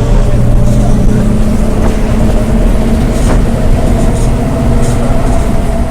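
Mercedes-Benz bus wheels at high speed: a steady droning tone with a higher whine above it, over heavy road rumble. This is the wheel-bearing noise typical of these buses, which is harmless to the vehicle.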